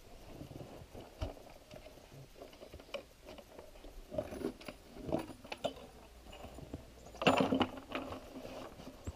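A metal chain clinking and rattling against a plywood board as the board is handled, with scattered knocks and a louder scraping clatter about seven seconds in.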